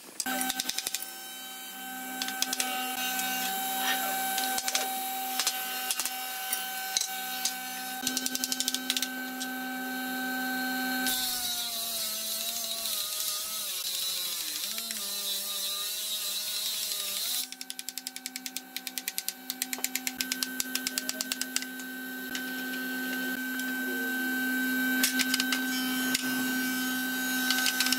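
Workshop machine humming steadily, its pitch wavering and dropping for a few seconds midway, with scattered knocks and clicks of wooden boards being handled and tapped into a frame with a mallet.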